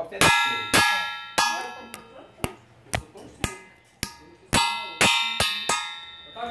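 A small stainless steel cup struck again and again with a wooden stick, about two hits a second; most hits ring out like a small bell, a few are short dull taps.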